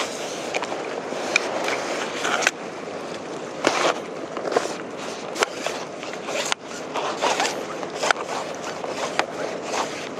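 Irregular clicks and scraping from fishing tackle being handled, a rod, spinning reel and chum ladle, over steady wind noise.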